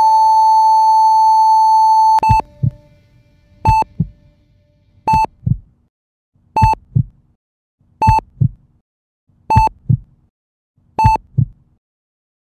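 A heart monitor's continuous flatline tone, which cuts off about two seconds in and gives way to regular single monitor beeps about every second and a half. Each beep is followed by a low double heartbeat thump, the sign of a heartbeat returning.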